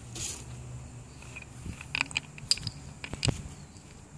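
Small plastic water bottle crinkling and clicking as children's hands handle it and its cap: a soft rustle, then several sharp clicks, the loudest a little over three seconds in.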